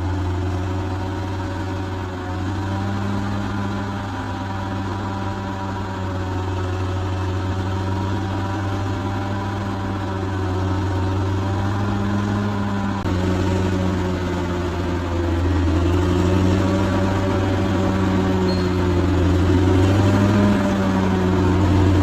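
Large bulldozer's diesel engine running steadily at work, its note wavering up and down as the load changes, a little louder toward the end.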